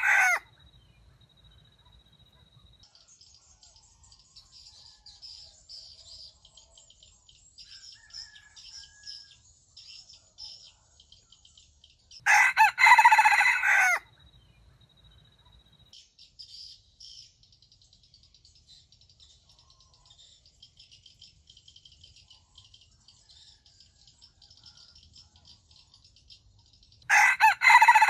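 Red junglefowl rooster crowing: two short crows, one about 12 seconds in and another near the end, with the tail of an earlier crow at the very start. A faint, high chirping goes on in the background between the crows.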